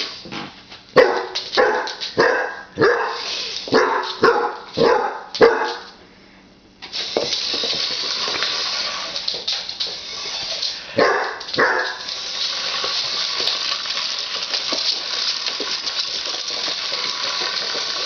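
A dog barking repeatedly at a remote-control toy car, about two barks a second for the first six seconds, then two more barks a little past the middle. From about seven seconds in, a steady hissing whir runs underneath.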